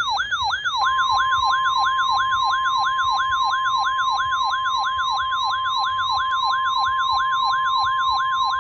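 Electronic weather-alert siren warbling rapidly up and down, about three sweeps a second. About a second in, a steady 1050 Hz NOAA Weather Radio warning alarm tone joins it, signalling that a warning is about to be broadcast.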